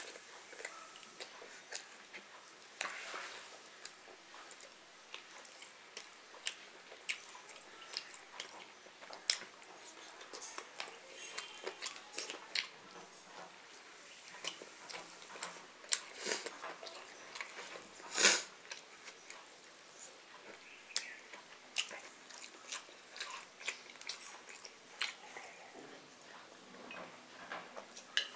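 Close-up eating sounds: a person chewing and smacking, with many small wet clicks scattered throughout and one louder click about two thirds of the way through.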